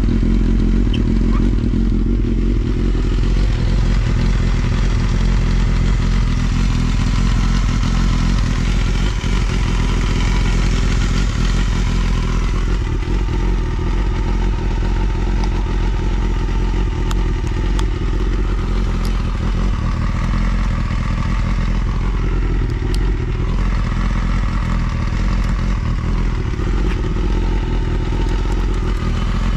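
Honda Jade's 250 cc inline-four engine running through a Wako's WR'S four-into-one full exhaust, idling steadily after a cold start. It runs cleanly, with no abnormal noise.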